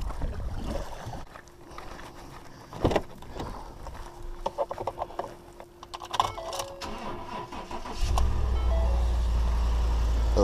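Pickup truck engine starting about eight seconds in and settling into a steady low idle, after a few clicks and knocks from the cab.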